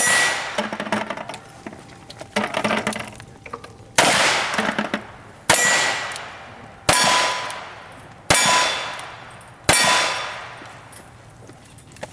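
A string of single-action gunshots, about one every second and a half. Each shot is followed by the clang and ringing of a steel target being hit.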